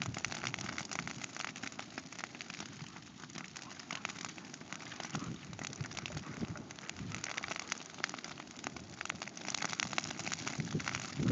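Dry little bluestem grass burning as a pasture fire, with a dense, steady crackling from the advancing flame front. A low rumble builds near the end.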